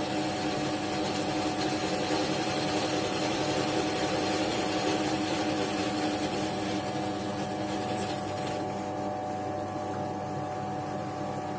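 Scheppach DP19 Vario drill press running at about 630 rpm while a 4 mm twist drill cuts through 5 mm steel, a steady motor hum with a hissing cutting noise. About eight and a half seconds in the cutting noise drops away, leaving mostly the motor's hum as the bit finishes the hole.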